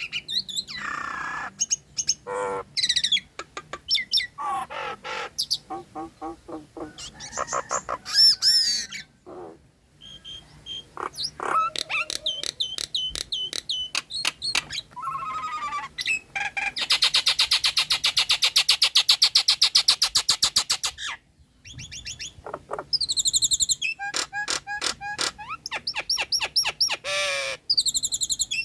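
Nias hill myna singing a varied, busy song of whistles, pitch glides, squawks and mimicked calls of other birds. About 17 seconds in it gives a fast rattling chatter lasting some four seconds, then quick runs of repeated notes.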